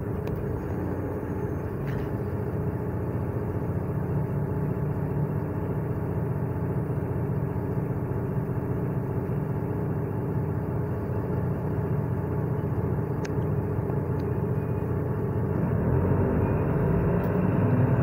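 Mercedes-Benz Citaro O530 city bus's engine running steadily, heard from inside the rear of the passenger cabin as the bus moves, with a few faint rattles. The engine grows louder near the end.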